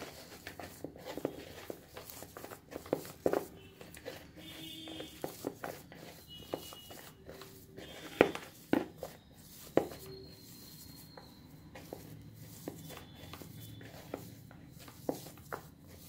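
Hands kneading a soft mashed-potato and gram-flour dough in a bowl: irregular soft squishes with sharper taps and knocks against the bowl, the loudest about three, eight and ten seconds in.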